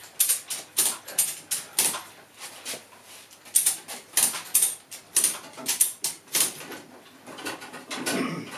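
Irregular sharp metallic clicks, a few a second, from hand work on a ratchet strap looped around the gearbox of an engine hanging from a chain hoist. A longer scraping sound comes near the end.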